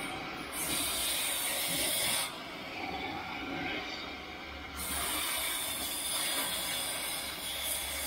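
Metal-cutting torch hissing steadily as it cuts a bracket off a steel crossmember. The hiss turns louder and brighter about half a second in, falls back a little after two seconds, and picks up again just before five seconds.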